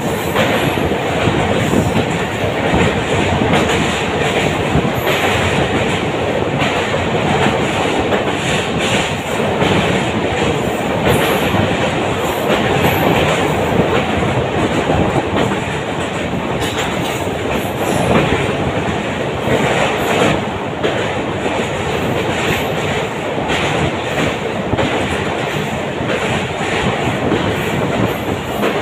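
Passenger train running on a railway bridge, heard from inside the coach by an open view at the window: a steady loud rumble of wheels on rails with rapid, continuous clatter.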